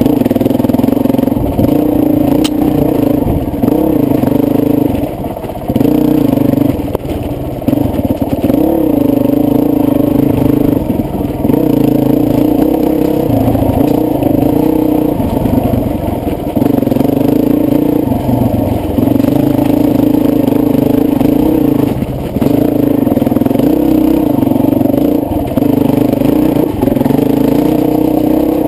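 Honda CRF450X single-cylinder four-stroke dirt bike engine running under riding load, its pitch rising and dipping again and again as the throttle is opened and rolled off.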